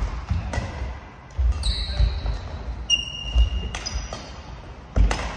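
Badminton rally in an echoing sports hall: several sharp racket strikes on the shuttlecock and thuds of footsteps on the wooden court floor, with court shoes squeaking twice in short high-pitched squeals.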